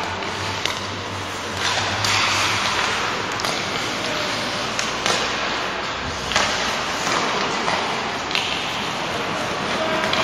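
Ice hockey play: skate blades scraping and swishing on the ice under a steady hiss, with about eight sharp clacks of sticks hitting the puck and each other.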